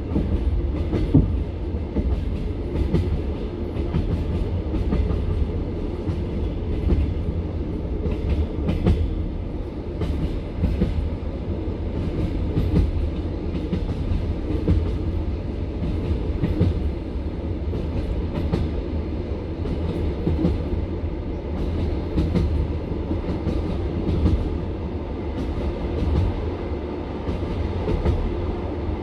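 Passenger train carriage running along the line, its wheels clacking over the rail joints again and again above a steady low rumble, heard from inside the car.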